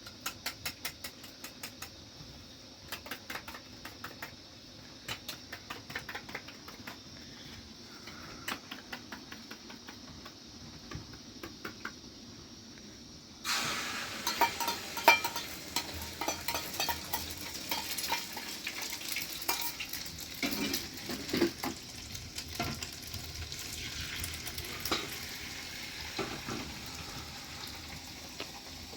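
Rapid light clicks and taps of utensils, then about halfway through a sudden sizzle starts: food frying in a pan, with stirring taps over the sizzle.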